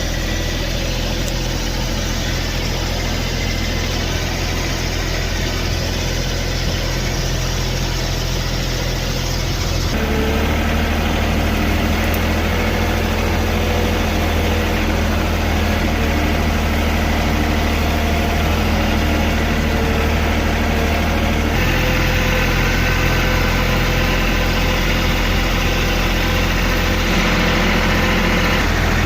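A heavy engine running steadily, its tone shifting abruptly twice, about a third of the way in and again past the two-thirds mark.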